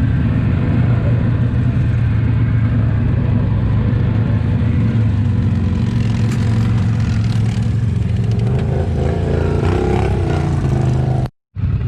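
An ATV engine running at a steady speed under way. The sound drops out completely for a moment near the end.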